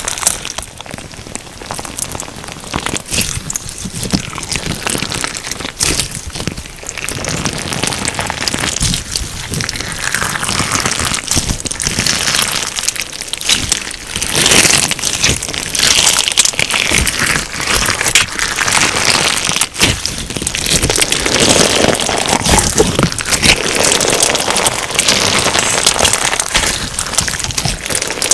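Crunchy slime packed with sugar beads being worked by hand, giving a dense crackle of many tiny pops that swells and eases every few seconds.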